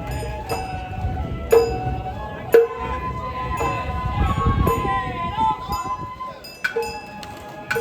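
Sawara-bayashi festival music: a small hand gong struck about once a second with ringing overtones, pausing in the middle while a bamboo flute plays held and sliding notes over a low rumble.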